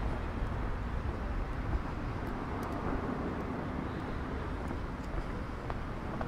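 Steady outdoor city ambience: a continuous low rumble of street traffic.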